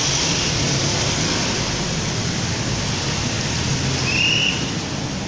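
Steady rush of street traffic with a low rumble underneath, and one short high squeak about four seconds in.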